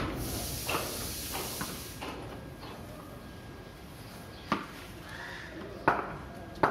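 Scattered sharp knocks of a cricket bat, ball and wooden stumps on a hard tiled yard: a few light ones early on, then three louder ones in the second half.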